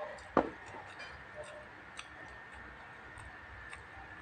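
A heavy glass mug of iced drink set down on a wooden board, one sharp knock about half a second in. After it, a few faint clicks from the mouth while chewing.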